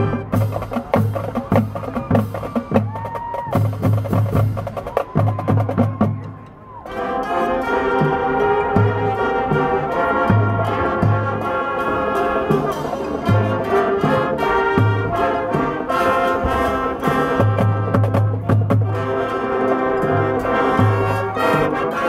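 High school marching band playing: a drum-led passage with regular low drum hits, a brief drop about six seconds in, then the full brass section comes in with loud sustained chords over the drums.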